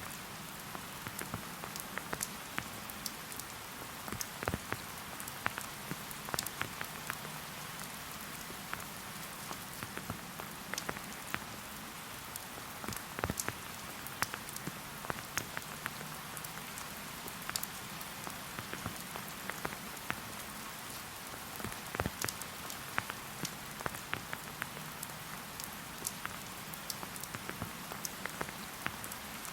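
Steady rain falling in a forest, with many individual drops tapping sharply close by, scattered irregularly over the steady hiss.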